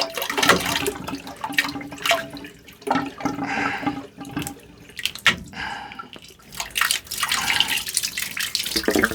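Residual water trickling and dripping from a freshly cut water pipe, with irregular clicks and scrapes of a pipe cutter being worked on the line.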